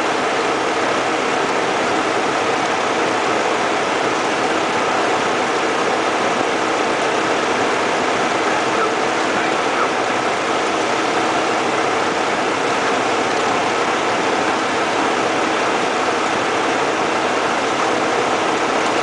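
Light single-engine propeller plane heard from inside the cockpit: the engine, throttled back for a power-off approach, runs steadily under the rush of airflow.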